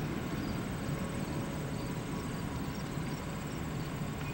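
Steady low rumble of engine and road noise from a car rolling slowly behind a flatbed truck, with faint high chirps over it.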